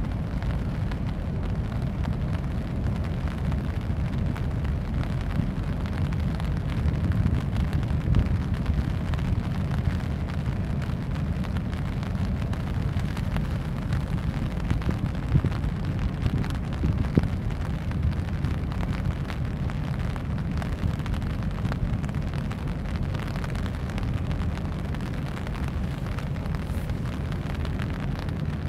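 Wind buffeting the microphone: a steady low rumble, with a couple of brief stronger gusts about halfway through.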